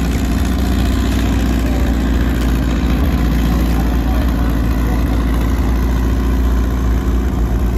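Car engine idling steadily and loudly close by, with a low rumble that holds even throughout.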